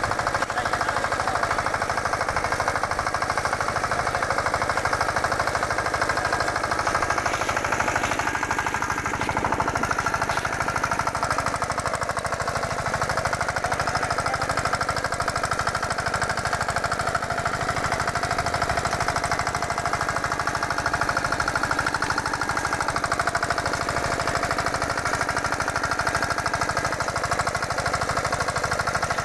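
Engine of a walk-behind rotavator and cultivator machine running steadily, with a rapid, even knocking beat.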